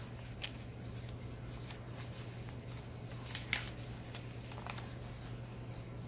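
Paper pages of a handmade junk journal being turned and handled: a few soft rustles and light taps, the clearest about three and a half seconds in, over a steady low hum.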